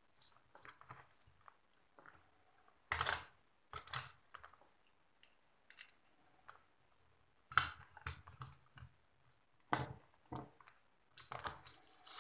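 Scattered clicks and knocks of a plastic cooling fan being handled and fitted onto an aluminium heat sink on an amplifier circuit board, with a few louder knocks spread through.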